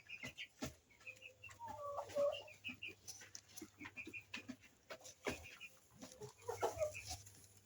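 Desi hen clucking, with the loudest clucks about two seconds in and again near the end. Short high chirps come in quick little groups throughout, and there are scattered clicks.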